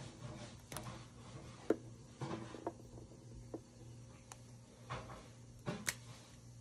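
Scattered light clicks and knocks of plastic paint bottles being handled and set down, about nine in all, over a steady low hum.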